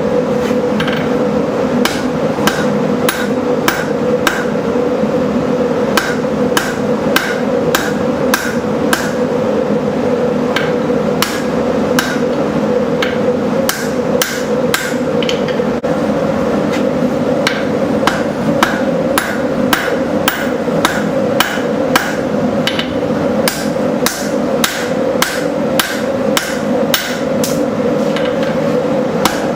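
Hand forging: a hammer striking steel stock on an anvil, about two blows a second, drawing out the handle section of a knife blank. A steady hum runs underneath the blows.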